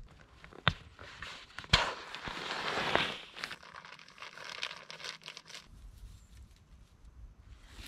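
Rustling and crinkling of camping gear being handled and packed away, with two sharp snaps or knocks in the first two seconds and a busy stretch of crinkling just after. The noise then thins to occasional light ticks.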